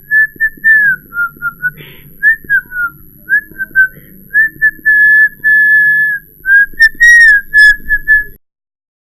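A man whistling through his lips: a single clear note that skips between short notes and slides up and down, with a longer held stretch about halfway through. It gets louder and shriller about seven seconds in, then stops abruptly near the end.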